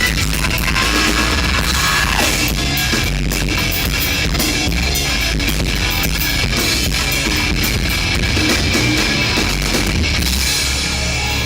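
Rock band playing, with drum kit and guitar.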